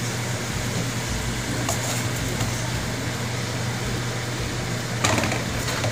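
Bitter melon and sardines frying in a wok: a steady sizzling hiss over a low hum, with a few short scrapes and clatters as the food is stirred and tossed, the clearest about five seconds in.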